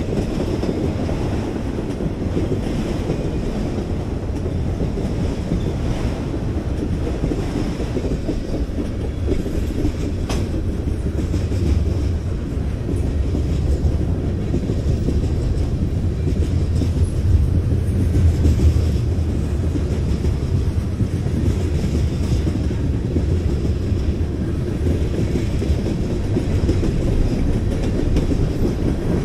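A mixed freight train of autoracks, covered hoppers and tank cars rolling past at close range: a steady low rumble of steel wheels on rail, with a few faint clicks.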